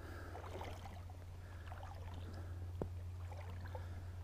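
Shallow creek water sloshing and trickling around a wading angler, with a steady low hum underneath. One sharp click comes about two-thirds of the way through.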